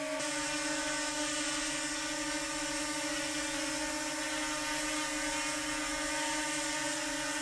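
DJI Mini 2 drone's motors and propellers running at a steady hover, giving an even, unchanging whine.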